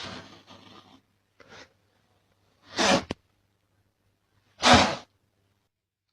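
A cat sneezing twice, two short sharp sneezes about two seconds apart.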